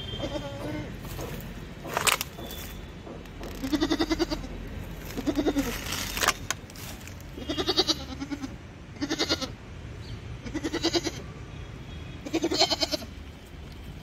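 Goat bleating about six times, each bleat short and quavering. Two short sharp noises come just before the first bleat and between the second and third.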